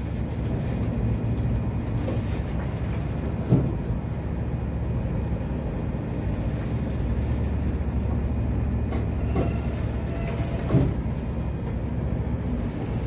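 A ship's engine rumbling steadily, heard from inside the wheelhouse, with two sharp knocks, one about three seconds in and another about eleven seconds in.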